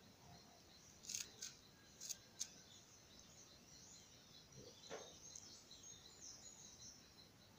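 Near silence outdoors with faint distant bird chirps. Two quick pairs of short, sharp high chirps come about one and two seconds in, softer chirping follows later, and a faint high pulsing runs in the background.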